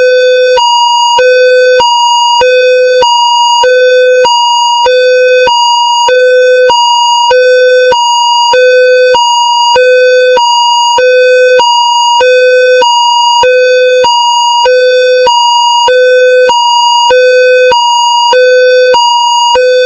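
Indonesian railway level-crossing warning signal sounding. It is an electronic two-tone alarm that alternates steadily between a low and a high tone, each held about two-thirds of a second with a short break between.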